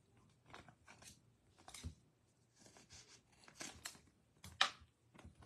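Trading cards being handled and sorted by hand: a series of short, papery swipes and flicks as cards slide against each other, the sharpest about four and a half seconds in.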